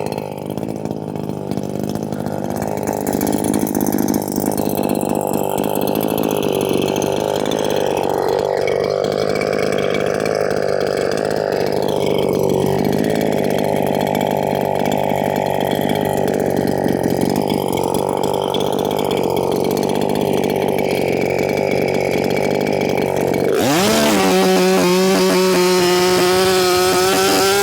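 Makita 6100 two-stroke chainsaw running steadily at a low idle. Near the end it is revved up quickly and held at high speed.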